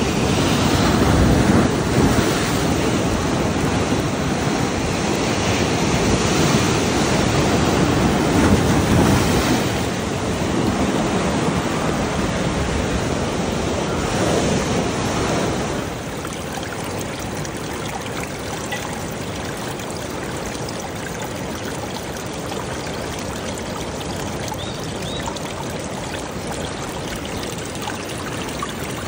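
Rushing water, surging and louder at first, then dropping abruptly at about 16 seconds to a steadier, quieter rush.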